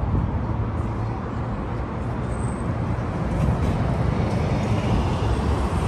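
Steady road-traffic noise: a continuous low engine rumble with road noise from passing vehicles.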